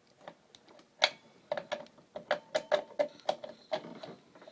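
Front axle bolt being worked through the fork and wheel hub of an electric scooter: a run of irregular sharp metal clicks and taps.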